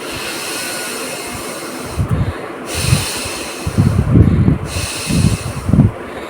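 A woman forcefully blowing her nose: three long, hard blows of air through the nostrils, the first about two seconds long, mixed with low thuds. They are dry blows, with not a drop coming out.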